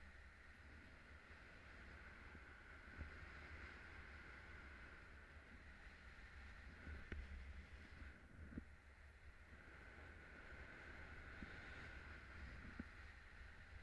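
Faint, steady rush of wind past the camera as the paraglider flies, with a few soft knocks.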